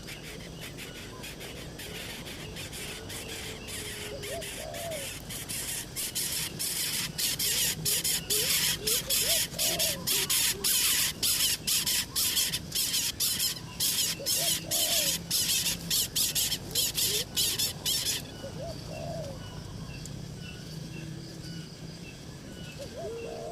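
Birds calling outdoors: a short low call repeats every four to five seconds throughout. From about six seconds in until about eighteen seconds, a loud, rapid, high-pitched pulsing chirr runs at about three to four pulses a second, then stops abruptly.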